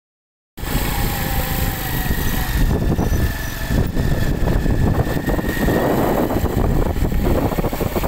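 Riding on a motorcycle: wind rushing and buffeting over the phone's microphone, mixed with the engine running. The sound starts about half a second in.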